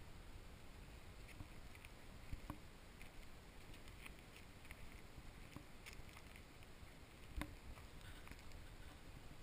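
Very faint outdoor background hiss with scattered light ticks and two sharper clicks, about two and a half and seven and a half seconds in.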